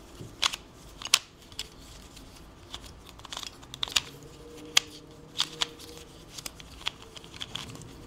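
Stickerless pyramid-shaped twisty puzzle being turned by hand: its plastic pieces click and clack as layers snap past each other, in irregular sharp clicks a few times a second.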